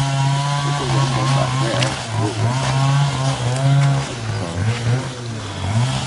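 A small engine running steadily, its pitch rising and falling unevenly.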